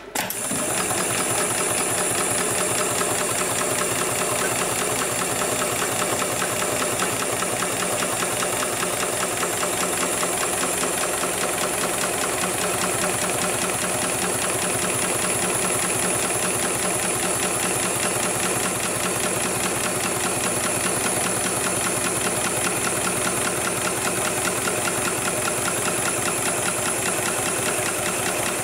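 HIGHTEX 7273CNC automatic industrial pattern sewing machine stitching webbing for a sling. It starts suddenly and runs as a fast, even needle clatter with a steady high whine.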